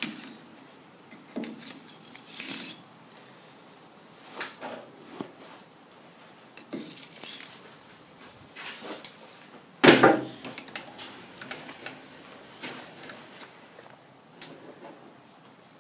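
Tangled metal swarf being pulled off a lathe chuck and workpiece with long-nose pliers and dropped into the chip tray: scattered metallic jangling and clinks, with one louder clank about ten seconds in.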